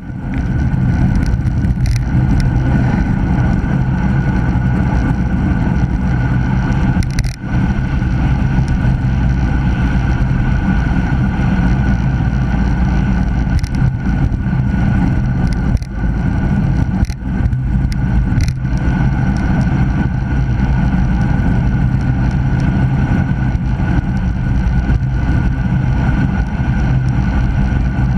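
Wind noise and tyre rumble picked up by a handlebar-mounted action camera as a road bike rides along a mountain road at speed. The noise is loud and steady, with a few brief clicks.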